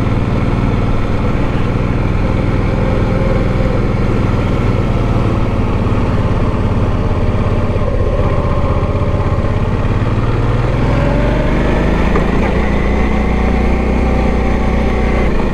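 Motorcycle engine running steadily on a steep mountain climb, picked up by the on-board camera; about eleven seconds in the revs rise.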